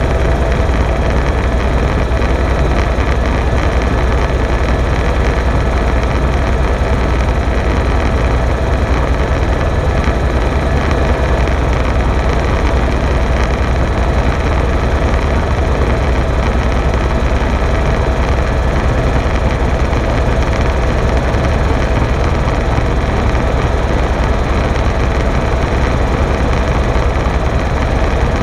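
Helicopter in flight: the rotor and engine make a loud, steady drone, heaviest in the deep bass, with a few faint steady whining tones above it.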